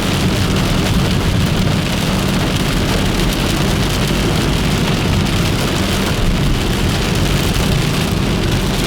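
Heavy storm rain pouring steadily, with a constant low rumble underneath.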